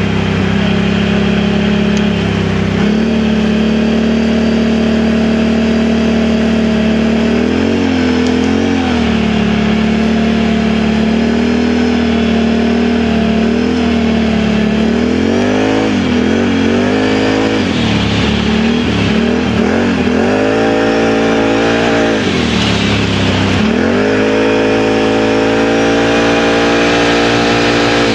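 Can-Am Outlander 1000 XMR ATV's V-twin engine running through an RJWC dual slip-on exhaust while being ridden. Its pitch is steady at first, then rises and falls again and again as the throttle opens and closes, climbing near the end.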